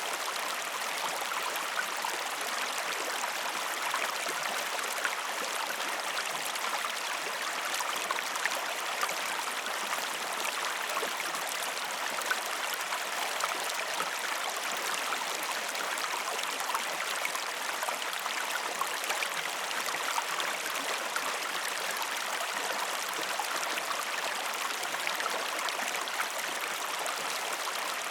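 Calm river water flowing steadily, a continuous rushing with many small splashes and trickles and no deep rumble.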